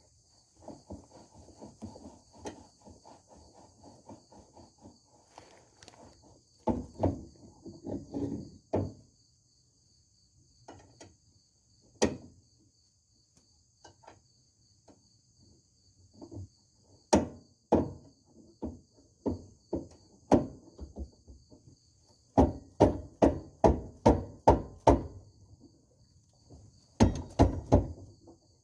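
Hand tools working on metal while the panhard bar is bolted in: a run of fast light clicks, then several series of sharp knocks, some loud and about a second apart, others quicker in a burst near the end. Crickets chirp steadily behind.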